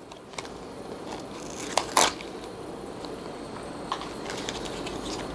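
Cardboard packaging being handled, a molded-pulp tray lifted and moved aside, with light rustling and scraping and a few sharp clicks, the loudest about two seconds in.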